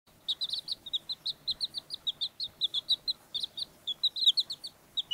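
Baby chicks peeping: a rapid, continuous run of short, high chirps, several a second.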